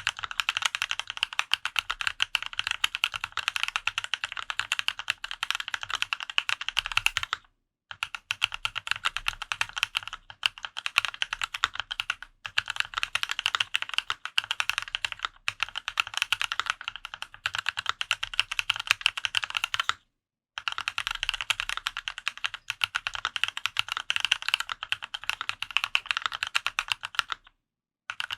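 Fast, continuous typing on a custom mechanical keyboard: a Dolphin 2021 with Haimu Raw switches lubed with Krytox 205g0, Linworks Retro keycaps and an aluminium plate. The typing breaks off briefly three times, about 7, 20 and 27 seconds in.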